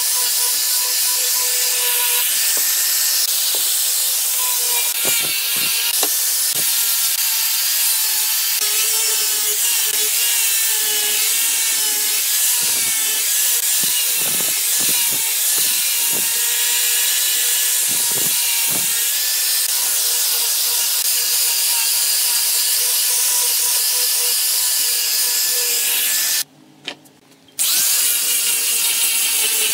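Handheld angle grinder with a sanding disc running steadily with a high motor whine, the disc hissing against the wood it is sanding. Several short knocks come in the middle, and the sound drops out for about a second near the end.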